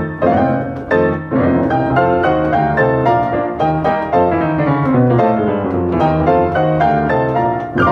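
Kastner & Co pianola, an upright player piano, playing a paper music roll: a brisk run of quick notes and chords, with a loud chord struck near the end that is left ringing.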